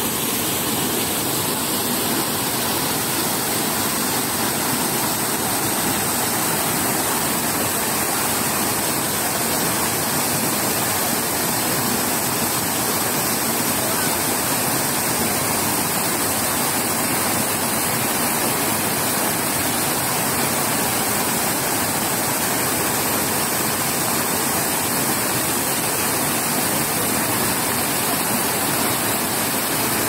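Water falling in a continuous curtain from the rim of a round fountain and splashing onto the tiles and into its pool: a steady, unbroken rush.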